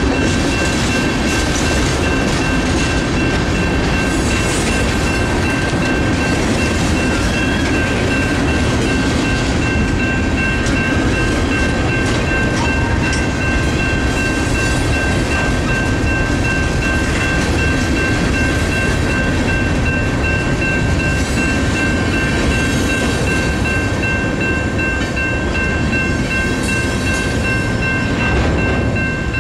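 Freight cars rolling through a railroad grade crossing, with steady wheel-on-rail rumble and clatter. The crossing's NEG electronic bells ring continuously over it.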